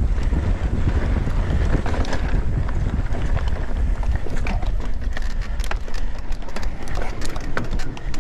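Mountain bike ridden at speed over dry dirt and grass: wind buffets the camera microphone over the rumble of tyres on the trail. Sharp clicks and rattles from the bike and stones grow more frequent in the second half.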